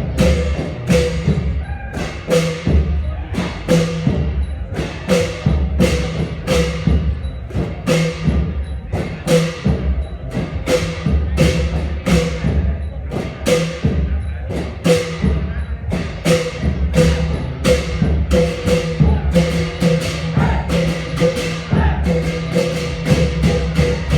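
Thai klong yao long-drum ensemble playing a traditional rhythm: deep drum beats under crashing cymbals, in a steady beat of strokes every half-second or so.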